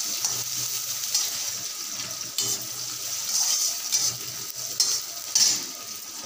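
Chopped onions frying with a steady sizzle in a steel kadai, while a slotted spatula scrapes and stirs them in irregular strokes against the pan; the strongest strokes come near the end.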